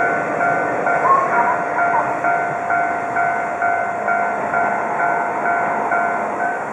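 Electronic railroad crossing bell ringing, about two dings a second, over the rumble of a passing train. The bell stops near the end as the crossing clears.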